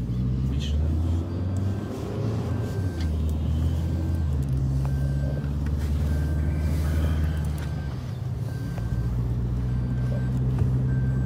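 Car cabin noise while driving: a steady low engine and road rumble that shifts in pitch twice, with faint short beeps now and then.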